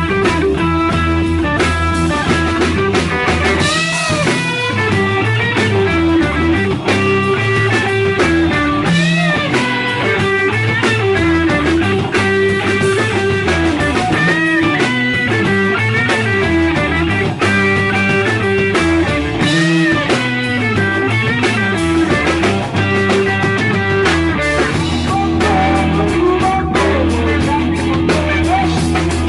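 Live psychedelic rock band playing: electric guitar bending notes over bass and drum kit.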